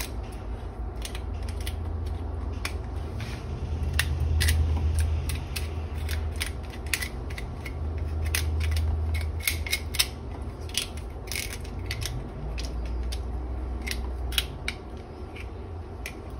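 A kitchen knife scraping and clicking against a blue crab's shell as its guts are scraped out: many short, irregular clicks and scrapes. A steady low hum runs underneath.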